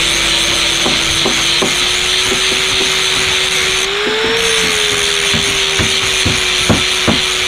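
Handheld electric angle grinder running with its disc pressed against a piece of wood: a steady motor whine under a hissing grinding noise, with scattered ticks. The pitch rises briefly about four seconds in.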